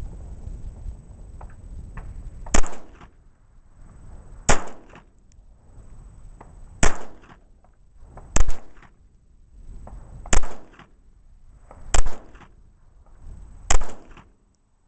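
Phoenix Arms HP22A .22 Long Rifle semi-automatic pistol fired seven times, single shots spaced about one and a half to two seconds apart, each a short report with a brief tail.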